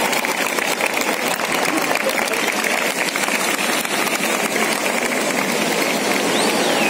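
Large crowd applauding and cheering, a dense, steady patter of clapping, with a short whistle near the end.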